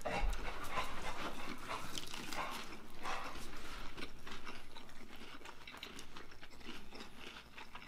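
Two people chewing mouthfuls of fried chicken sandwich on glazed doughnut buns: irregular crunching of the breading and small mouth clicks, fading a little near the end.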